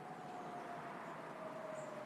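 Faint, distant HELIN electronic warning siren sounding on a monthly test alarm, heard from across the river. It holds a single tone that falls slowly in pitch as the siren winds down, over a steady background hiss.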